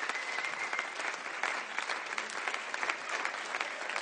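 Concert audience applauding: dense, steady clapping from many hands.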